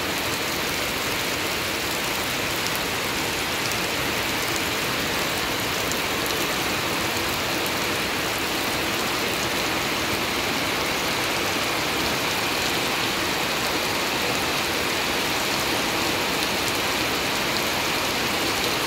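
Steady rain falling on grass and puddles.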